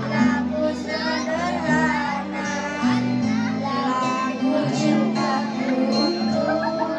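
Two boys singing together into microphones over a musical accompaniment of held chords.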